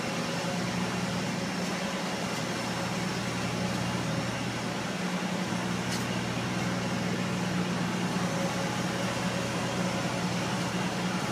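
Steady low machine hum made of several even drone tones over a broad hiss, with a faint click about six seconds in.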